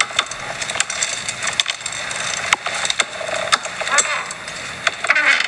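Rocking office chair creaking: irregular sharp wooden-sounding clicks and ticks, with a few longer drawn-out creaks, the strongest near the end.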